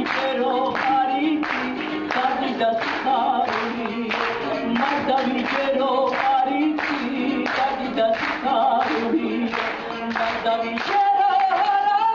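Georgian folk song sung by a group of voices, with steady rhythmic hand-clapping at about two to three claps a second and a panduri accompanying.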